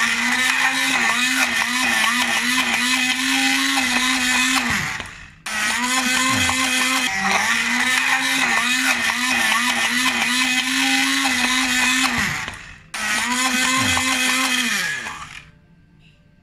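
Electric hand-held immersion blender running in a glass beaker of quark and flaxseed-oil cream, switched on three times. The runs last about five seconds, seven seconds and two seconds, each ending in a falling whine as the motor spins down. This is the stage of blending the flaxseed oil into the quark cream.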